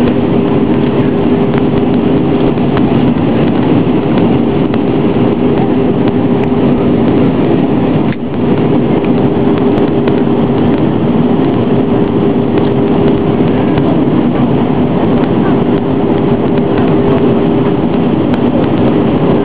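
Steady cabin noise of an easyJet airliner in flight, heard inside the cabin by a window over the wing: engine drone and rushing air, with two steady low hum tones running through it. The noise dips briefly about eight seconds in.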